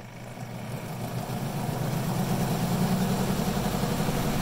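Portable twin-tub washer's spin-dryer basket starting up with a wet load of laundry. The motor hum grows steadily louder as the basket picks up speed, with the drum rattling before it gets up to speed.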